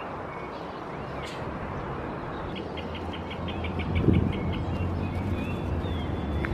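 Small birds chirping, with a quick trill of about ten notes around the middle, over a steady hum of city traffic whose low rumble grows louder in the second half.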